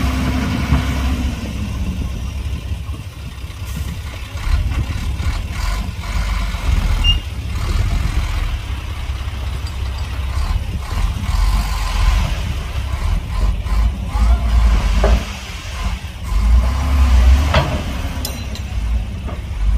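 Heavy earthmoving machines' diesel engines running with a deep, steady rumble; near the end one revs up and settles back down.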